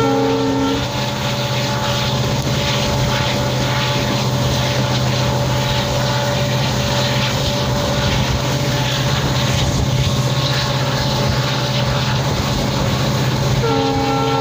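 WDP4D diesel locomotive's two-stroke V16 engine running steadily as it hauls the train, over the rush of wheels and wind. The locomotive horn sounds briefly at the very start and again near the end.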